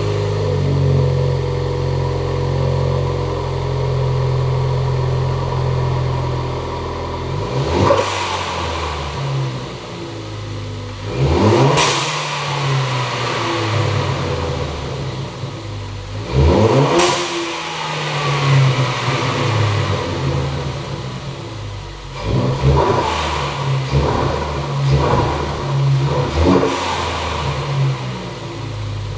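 2016 Ford Focus ST's turbocharged 2.0-litre four-cylinder idling steadily for several seconds, then revved up and back down three times and blipped several more times near the end. The revs test whether newly fitted 2.5-inch intercooler charge pipes stay on.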